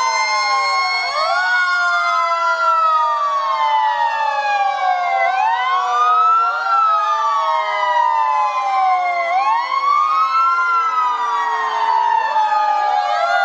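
Several fire engine sirens wailing at once, their pitches rising and falling over a few seconds each and overlapping out of step.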